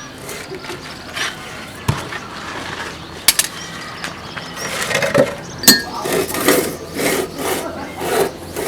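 Hand work on a truck: a few sharp knocks and clinks, one with a brief ring, then rhythmic scraping or rubbing strokes about twice a second from halfway on.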